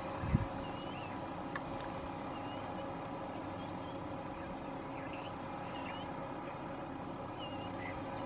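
Steady hum of an idling vehicle engine, with short high bird chirps now and then and a brief knock just after the start.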